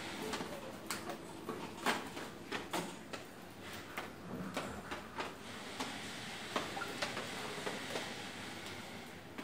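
Background room noise with irregular light clicks and knocks scattered through it.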